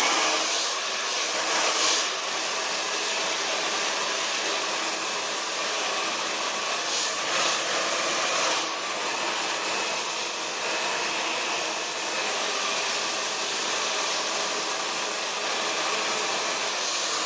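Handheld blow dryer running steadily, blowing hot air through a section of hair wrapped on a metal round brush to dry it completely.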